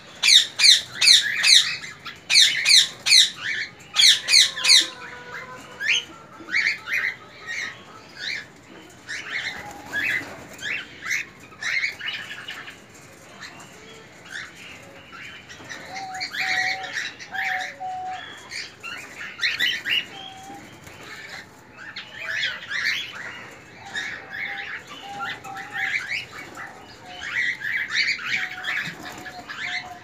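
A colony of cockatiels calling and chirping. In the first five seconds there is a run of loud, rapid, repeated calls, followed by scattered calls at a lower level.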